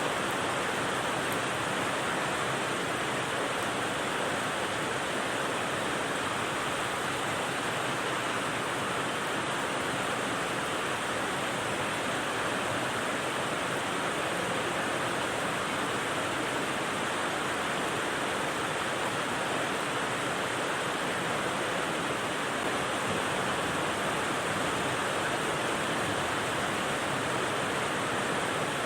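Steady rain as an unbroken, even hiss with no single drops standing out, unchanging in level throughout.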